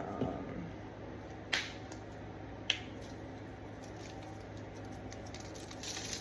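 Quiet kitchen handling noise: two sharp clicks a little over a second apart over a steady low hum.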